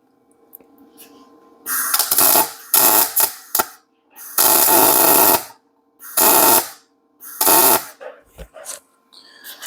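Gas-shielded MIG welder arc crackling in about six short bursts of a second or less, building a weld blob onto the end of a broken exhaust stud so a nut can be welded on to extract it. A faint steady hum runs underneath.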